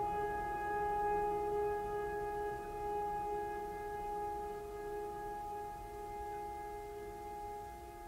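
Background music: one sustained droning tone with several overtones, held steady and slowly fading.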